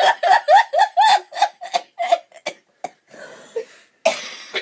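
A woman laughing uncontrollably: a rapid run of high-pitched 'ha' bursts, about four a second, fading over two seconds. Then comes a long breathy in-breath, and near the end a harsh, noisy burst of breath.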